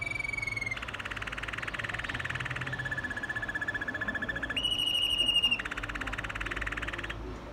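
Waterslager Malinois canary singing a chain of song tours: a slightly falling whistled note, then fast rolling trills, a lower steady trilled note, and a louder, higher whistled note about five seconds in, followed by another rolling trill that stops near the end.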